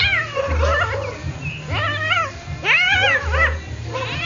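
Domestic cat meowing repeatedly, several drawn-out meows rising and falling in pitch, while a dog noses and presses on it. A low rumble comes and goes underneath.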